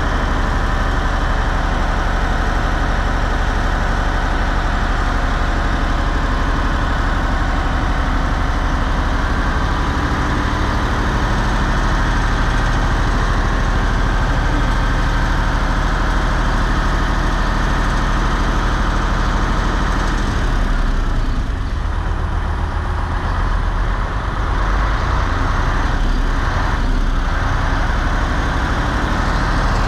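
Fishing boat's diesel engine running steadily at idle, a loud, even low hum that eases slightly about two-thirds of the way through.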